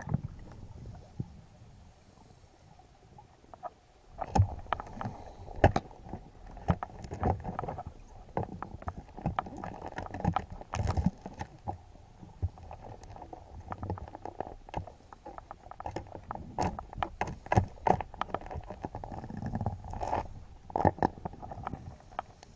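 Muffled underwater knocks, clicks and scrapes picked up by an action camera in its housing, as a freediver's speargun and gloved hand work against rock. They start about four seconds in and keep coming irregularly.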